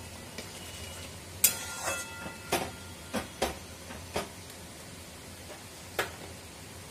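A metal ladle stirring thick chana dal in a metal pan, knocking against the pan several times with short metallic rings, over a steady low hiss.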